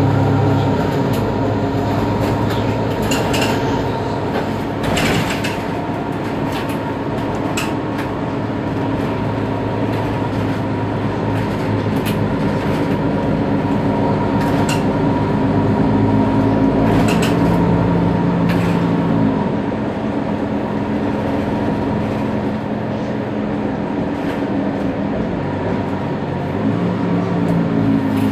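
Mercedes-Benz Citaro G articulated city bus heard from on board while driving: a steady engine and drivetrain drone whose note shifts about two-thirds of the way through, with occasional clicks and rattles.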